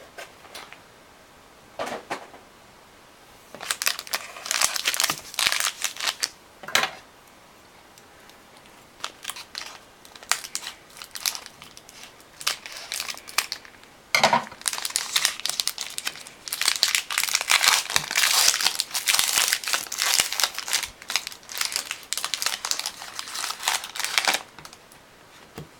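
Pack wrapper of trading cards being torn open and crinkled by hand, in several bouts of crackling with short pauses between them.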